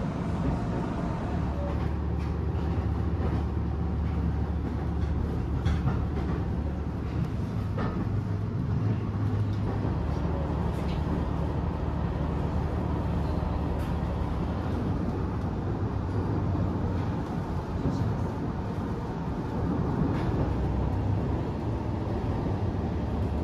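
Kairi diesel railcar running along the line: a steady low rumble with a few faint clicks.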